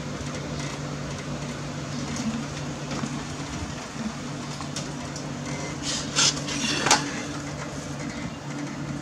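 A steady low hum, with two short clinks about six and seven seconds in.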